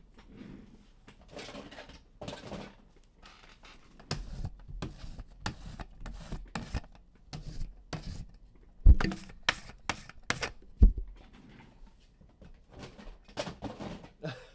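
Trading cards and pack wrappers being handled on a table: a run of rustling, crinkling and tearing, with two sharp knocks about nine and eleven seconds in.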